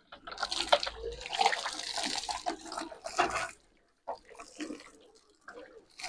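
Water poured from a plastic bucket, splashing onto a woven charpai cot and the wet ground. There is one long pour over the first three seconds or so, then lighter, scattered splashes.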